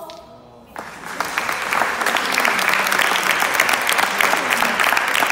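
Audience applauding: the clapping breaks out about a second in, just after a choir's final chord dies away, and builds into dense, steady applause.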